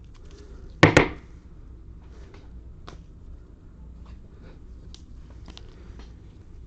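Trading cards being handled, with faint scattered clicks and rustles over a low steady hum, and one loud short thump about a second in.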